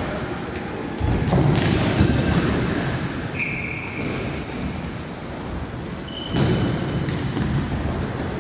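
Futsal ball being kicked and thudding on a wooden gym floor, with several short high squeaks of players' shoes, all echoing in a large hall.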